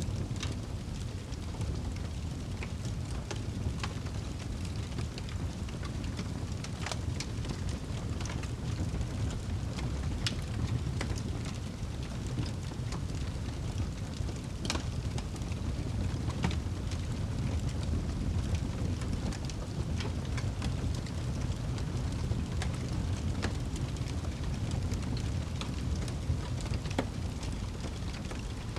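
Wood fire crackling, with sharp pops at irregular intervals, the loudest about halfway through, over a steady low rumble.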